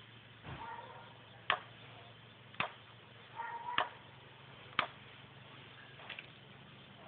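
Four sharp clicks, about a second apart, over a low steady hum, with a couple of faint short pitched sounds in between.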